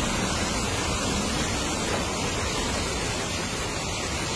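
High-pressure water jets of a drive-through truck wheel wash spraying against a dump truck's wheels and underbody: a steady rushing hiss of spray.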